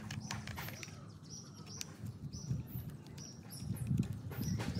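Small screwdriver turning a screw into a plastic toy car chassis, with light clicks and scrapes of hard plastic being handled. Birds chirp in the background.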